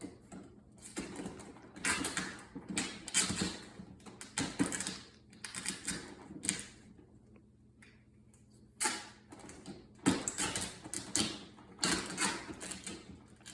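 Duct tape being pulled off the roll in repeated rasping strips, with short pauses between pulls.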